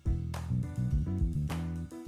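Instrumental music with a steady beat and bass line, a sharp drum hit a little over a second apart.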